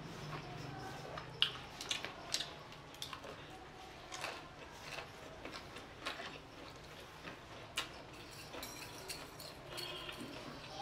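Close-up eating sounds: chewing and slurping ramen noodles and fried chicken, with an irregular scatter of short mouth clicks and smacks.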